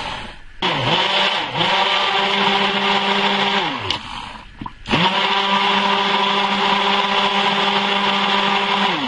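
Stick blender mixing soap batter, run in two bursts of a few seconds, each whirring up to speed and winding down, with a short pause between.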